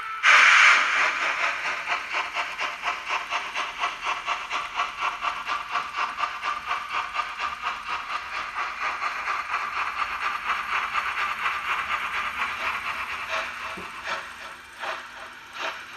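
Model steam locomotive sound, as played by a Märklin HO locomotive's onboard sound: a sharp burst of steam hiss, then steady rhythmic chuffing, about three beats a second, that fades as the engine pulls away. A few separate clicks near the end.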